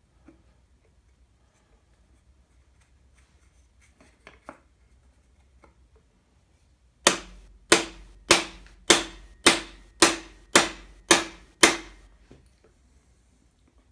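Nine sharp, ringing hammer blows, a little under two a second, on a driver tool knocking a bearing in the Allis Chalmers engine block to line up its oil hole. A few faint taps come before them.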